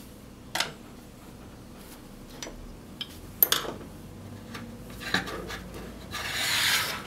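Small parts of a panic latch mechanism being handled and fitted: a few sharp clicks and knocks, then about a second of scraping near the end as a part rubs into place.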